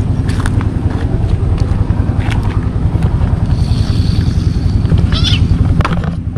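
A cat gives a short, high yowl about five seconds in, from being stepped on, over a steady low rumble.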